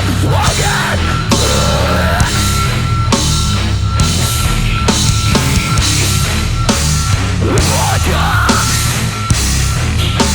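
Live heavy metal band playing loud, with distorted guitars, bass and a driving drum kit at a steady pulse.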